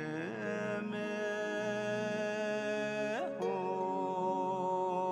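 Background music: a slow chant-like melody with long held notes over a steady low drone. It slides to a new pitch near the start and again about three seconds in.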